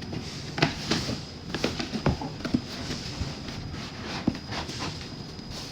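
Molded pulp and paperboard packaging being handled and fitted together by hand: a string of irregular light taps, knocks and rustles.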